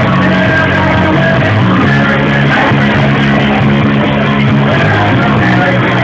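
A rock band playing live and loud, with electric guitar and drums.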